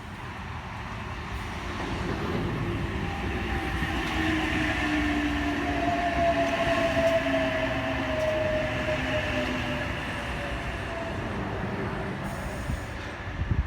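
H-set (OSCAR) electric intercity train running through the station: a rumble that builds to a peak about halfway and then eases off, with two whining tones gliding slowly down in pitch.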